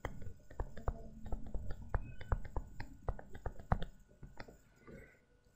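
Stylus tapping and scraping on a pen tablet while handwriting a short formula: a run of small, irregular clicks that thins out after about four seconds.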